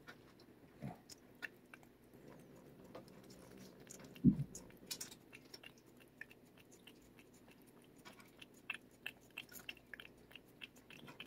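A cat licking a Churu liquid treat from a squeezed tube: quick wet tongue clicks and smacks, coming thicker near the end. One short low thump about four seconds in.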